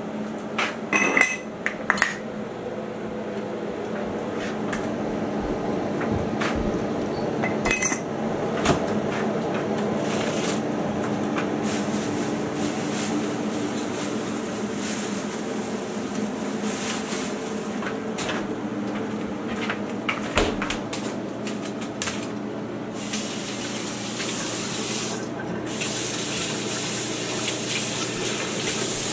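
Kitchen clatter of dishes and utensils being handled, with a few sharp clinks early, over a steady low hum; near the end a tap runs as vegetables are rinsed in the sink.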